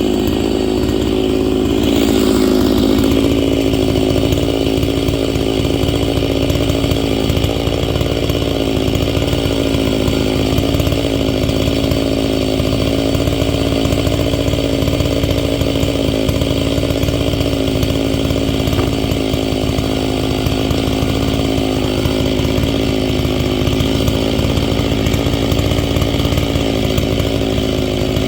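Stihl MS660 two-stroke chainsaw with a 36-inch bar and ripping chain, running steadily under load as it rips lengthwise through a firewood log. Its pitch drops slightly about two seconds in, then holds.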